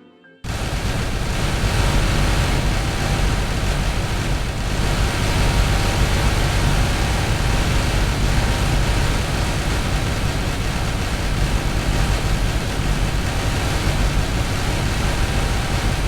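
Explosion sound effect: a loud, dense rumble of noise comes in abruptly about half a second in, cutting off quiet string music, and holds steady without dying away. It is heaviest in the low end.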